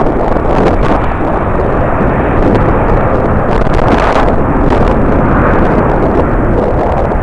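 Jet airliner's engines giving a loud, steady rumble, with strong wind buffeting the microphone in brief gusts.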